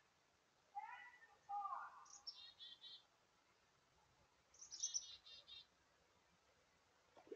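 Black-capped chickadee giving its chick-a-dee call twice, each a quick run of high, rapidly repeated notes, about two seconds in and again around five seconds. Before the first, two short, lower distant calls are heard faintly.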